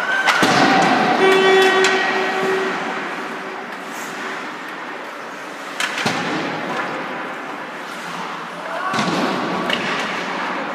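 Ice hockey play in an echoing rink: sharp knocks of puck and sticks against the boards about half a second, six and nine seconds in, over a steady hubbub of skates and players' voices.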